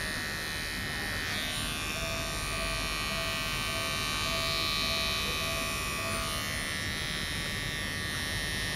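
Cordless electric pet clipper running steadily with a buzzing motor whine as it shaves the fur on a dog's belly.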